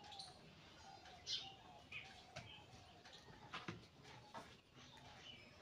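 Soft crackles of a folded paper rupee note being pinched and creased between the fingers, a few crisp rustles over near silence. Faint bird calls sound in the background.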